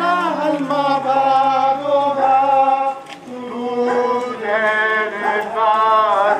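Voices singing a slow chant-like hymn in long held notes, with a brief break about halfway through.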